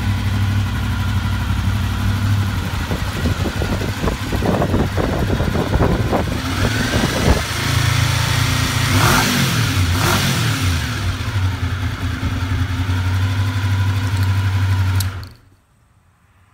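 Motor noise: a steady engine-like hum with a rattly stretch, then a rev up and back down a little past the middle, cutting off suddenly near the end.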